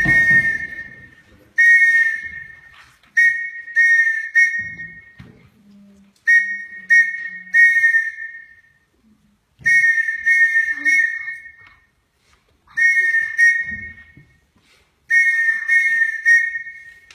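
A whistle sounding Morse code: short and long blasts of one steady, shrill tone, grouped into letters with short pauses between them.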